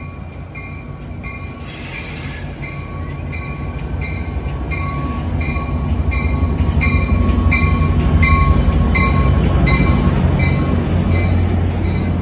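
Amtrak F59PHI diesel locomotive pulling a passenger train into a station, its low engine drone growing louder as it approaches and passes close by. Its bell rings steadily, about twice a second.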